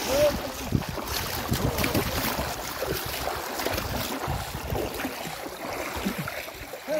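Water splashing and sloshing as people wade and work hand nets in a shallow, flowing river, over a steady rush of water.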